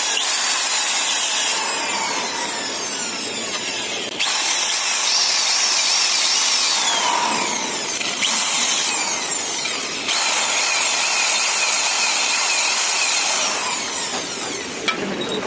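Metal lathe running with a cutting tool working a motorcycle engine part: a steady, loud, high-pitched cutting noise with sweeping streaks, changing abruptly about four, eight and ten seconds in.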